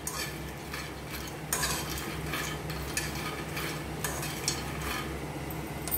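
A spoon stirring and scraping dry makhana (fox nuts) around a steel frying pan as they roast without oil or ghee, making irregular light scrapes and rattles over a steady low hum.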